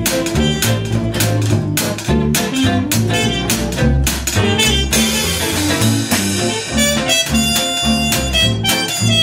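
Instrumental jazz break: an archtop guitar strums chords in a steady beat over a bass line, and a trumpet plays a solo, holding long notes in the second half.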